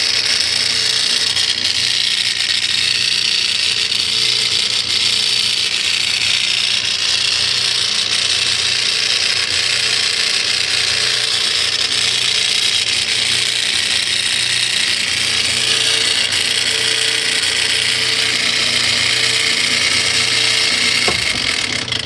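Whirlpool washing machine making a loud, steady mechanical whirring noise while failing to spin the drum, even though its belt and coupler look good. The noise stops suddenly near the end.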